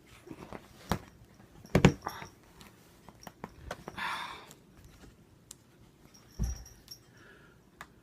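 Cardboard box being handled and turned over: a few knocks and bumps, the loudest a double knock just under two seconds in, and a brief rustle about four seconds in.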